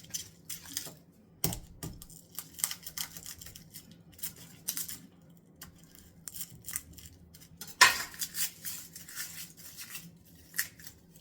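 Kitchen tools clicking and clattering at an uneven pace while an onion is chopped, with a heavy knock about a second and a half in and the loudest clatter near eight seconds in.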